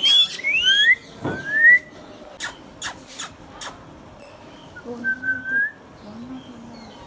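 Indian ringneck parakeet whistling: four quick rising whistles in the first two seconds, then a few sharp clicks, and a quieter whistle about five seconds in.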